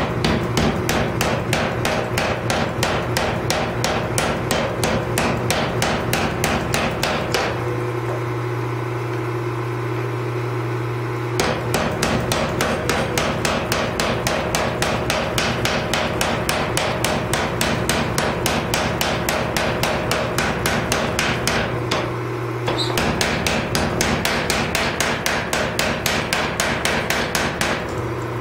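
Mechanical power hammer striking a glowing Damascus steel billet in rapid, even blows, about five a second. The blows stop for a few seconds about a third of the way in and again briefly near the end, leaving the machine's steady low hum.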